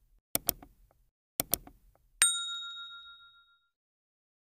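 Two quick double clicks about a second apart, then a bright bell ding that rings out and fades over about a second and a half.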